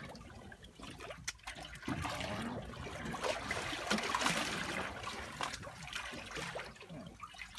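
Water trickling and lapping against the side of a small boat, uneven and a little louder in the middle, with faint scattered clicks.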